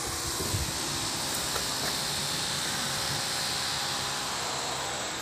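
Steady hiss, an even noise with no clear pitch or rhythm.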